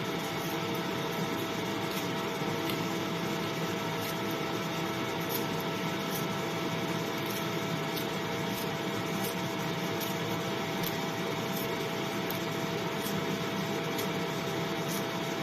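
A steady mechanical hum with a constant whine, like a household appliance or fan running, holding level throughout. Faint light clicks come and go irregularly over it.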